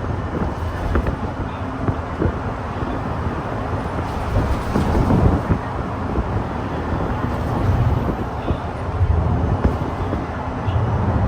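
Cabin noise of a Hino Blue Ribbon City Hybrid bus driving at speed: a steady low drone of the drivetrain and road noise with occasional short rattles, and wind rushing past.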